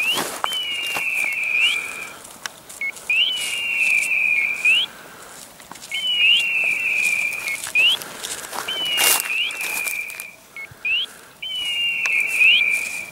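Electronic beeper collar on a pointing dog sounding in point mode: a long steady beep with a short rising chirp at each end, repeating about every three seconds, the signal that the dog is standing on point. A few bumps of noise come through now and then.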